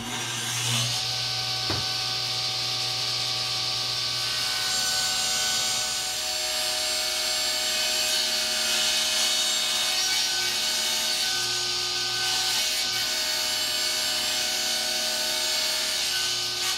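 Shop-built wooden table saw running and ripping a thin strip off a plywood fence rail, with a steady blade-cutting noise over the motor's hum.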